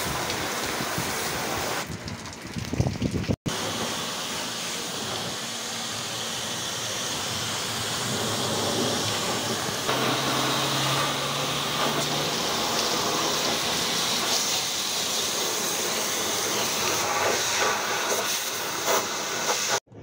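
Steady rushing hiss that cuts off abruptly twice, with a few louder uneven bursts about two to three seconds in.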